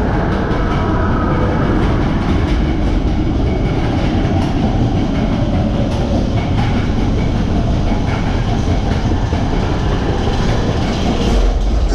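Steady rumble and clatter of a vehicle running on rails, with a fine rattle throughout.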